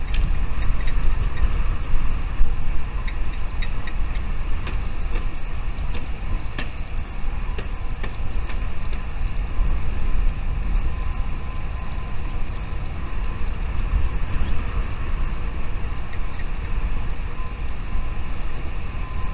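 Wind buffeting the microphone: a steady low rumble that wavers in loudness. Faint short high chirps of small birds come through it here and there in the first several seconds.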